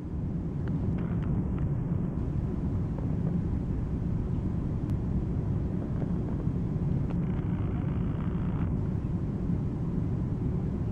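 Steady low rumble of cabin noise inside an Ilyushin Il-96-300 airliner on approach, from airflow and its PS-90A turbofan engines, heard from a seat over the wing. A faint hiss rises briefly a little after the middle.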